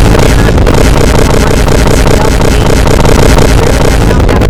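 Extremely loud, heavily distorted meme sound effect: a dense, clipped wall of noise, steady and at near full volume.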